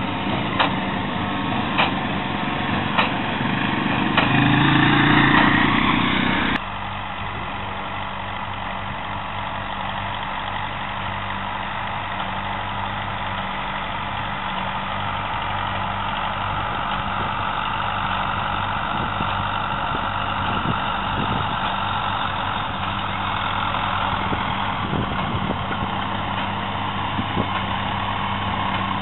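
Fendt tractor pulling a Claas large square baler in hay, its engine running steadily under load while the baler's plunger knocks about once every second and a bit. About six seconds in the sound cuts abruptly to a steadier, quieter engine hum of tractors working farther off.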